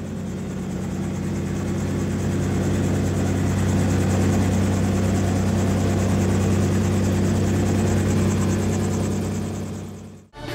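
Helicopter running steadily overhead: a low drone with a fast, even beat of the rotor, fading out just before the end.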